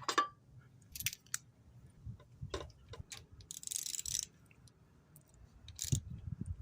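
Scattered light clicks and metallic taps from spark plugs and hand tools being handled during a tune-up, with a short scraping rattle about four seconds in and a sharper click with a few low knocks near the end.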